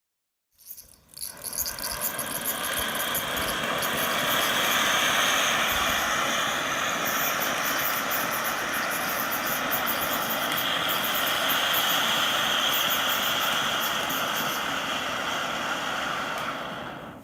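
Japanese toy fountain firework catching with a few sputters, then spraying sparks with a steady loud hiss and fine crackle for about fifteen seconds before dying away near the end as it burns out.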